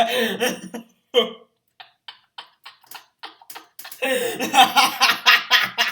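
A voice briefly at the start, then a run of light, sharp clicks, roughly three a second, for about two seconds. A dense stretch of voice sound follows from about four seconds in.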